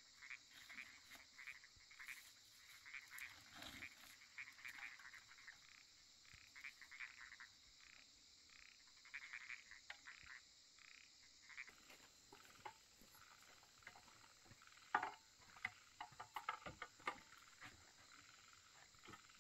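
Frogs calling faintly, short calls repeated in quick clusters through the first half. A handful of sharp clicks or taps follow in the second half, the loudest about fifteen seconds in.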